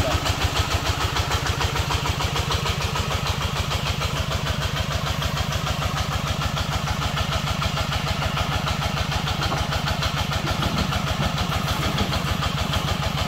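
The single-cylinder diesel engine of a two-wheel công nông tractor chugs steadily in an even, fast beat as it hauls a loaded trailer through deep mud.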